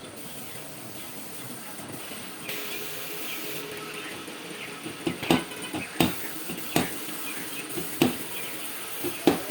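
A short hiss, then sharp knocks from about halfway in, roughly one a second and uneven.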